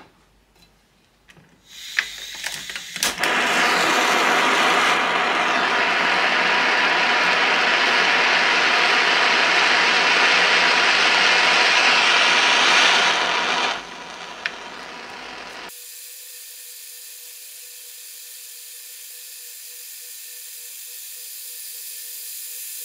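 Butane flame gun on a gas cartridge clicked alight about two seconds in, then its flame hissing loudly and steadily for about ten seconds. Near the middle the sound drops to a quieter, thinner hiss with a faint steady tone.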